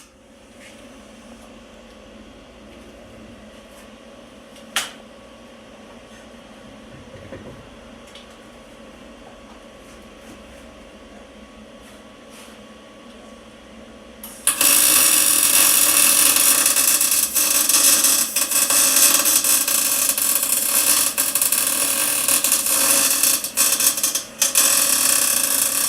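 MIG welder arc-welding the differential to lock it. It starts about halfway through with a loud, steady crackling sizzle that breaks off briefly twice near the end, after a faint steady hum and a single click.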